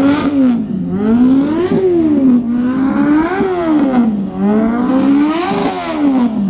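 Motorcycle engine revved hard over and over, its pitch climbing to a peak and dropping back about four times.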